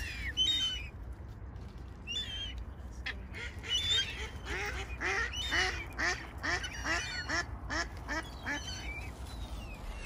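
Mallards quacking in a quick run of about a dozen quacks, roughly three a second, through the middle of the stretch, with a few higher, thin bird calls near the start.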